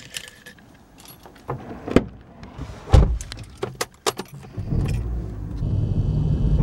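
A bunch of car keys jangling and clicking as they are lifted out of a box and a key is pushed into the car's ignition. About four and a half seconds in, a car engine comes in with a steady low rumble that grows louder.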